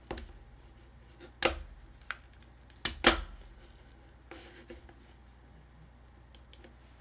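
A handful of short, sharp clicks and knocks over faint room tone, the loudest a close pair about three seconds in.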